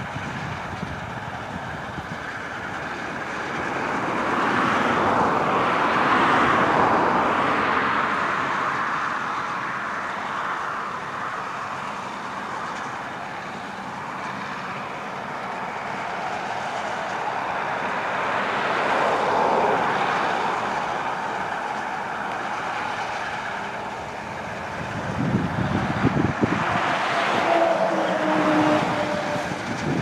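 Massey Ferguson 640 combine harvester running as it cuts wheat, a steady mechanical rush that rises and falls in level.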